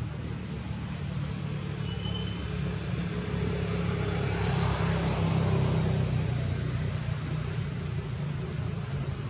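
A motor vehicle passing by: a steady low engine hum swells to a peak around the middle, then fades away.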